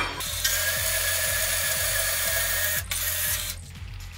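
Steady mechanical rattling from work on a chainsaw's bar and chain, with a faint whine. It follows a sharp click, runs for about two and a half seconds, cuts off suddenly, and returns once briefly.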